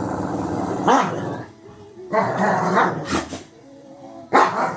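Dog growling and barking in several bursts, with a rising yelp about a second in.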